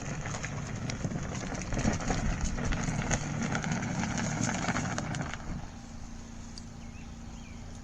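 Small RV washing machine running, its motor giving a steady hum while the load inside churns with rumbling and scattered knocks and clicks. About five and a half seconds in the churning stops and only the motor hum goes on.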